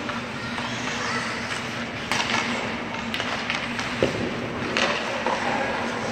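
Ice hockey play heard from rink-side: skates scraping on the ice and a few sharp clacks of sticks and puck, about two, three and five seconds in, over a steady low hum in a large arena.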